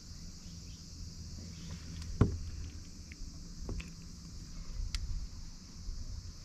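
Outdoor ambience: a steady high insect hum over a low rumble, with one sharp click a little over two seconds in and a few fainter ticks later.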